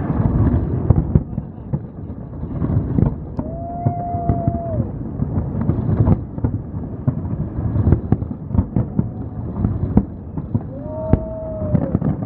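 Fireworks display: a dense, irregular run of bangs and crackles over a steady low rumble. A held whistling tone sounds twice, about three and a half and eleven seconds in.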